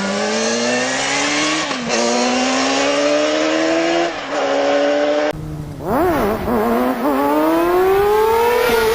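Motorcycle engine accelerating hard, its pitch climbing and dropping back twice as it shifts up through the gears. About five seconds in the sound cuts abruptly to another motorcycle, revving unevenly before pulling away with a steadily rising pitch.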